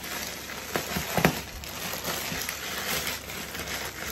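Plastic packaging crinkling and rustling as hands pull at a tightly wrapped mailer bag, with a couple of sharper crackles about a second in.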